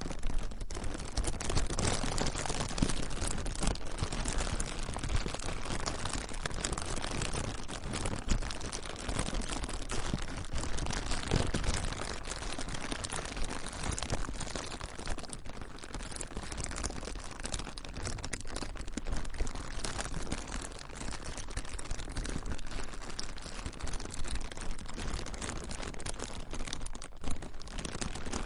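Plastic being crinkled and crumpled by hand: a continuous dense crackling with many small sharp crackles.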